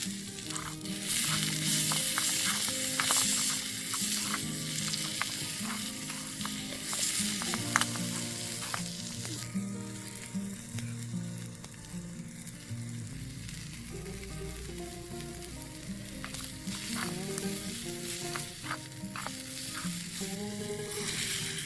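Food sizzling and frying in a miniature pan, with a small spoon clicking against it as it stirs. The sizzle is loudest in the first half, fades, and swells again near the end.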